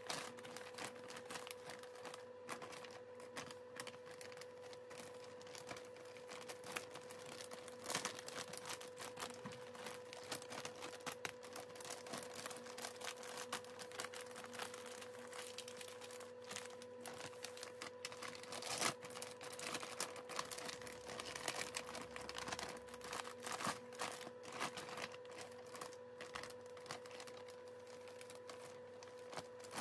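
Clear polypropylene mushroom grow bags filled with grain crinkling and crackling as they are handled and their tops folded, with irregular light clicks. A steady hum runs underneath.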